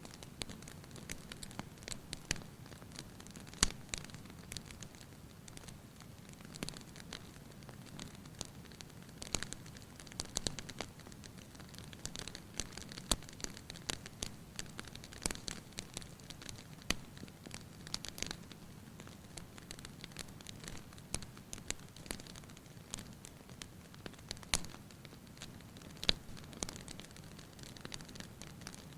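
Fire crackling in a fireplace: irregular sharp pops and snaps, a few of them louder, over a steady low rush of burning.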